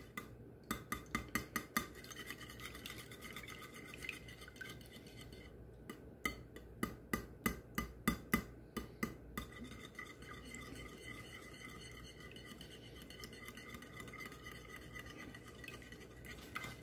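Wire whisk beating eggs in a glass dish: two spells of quick ticking as the wires strike the glass, about a second in and again around the middle, with quieter swishing in between.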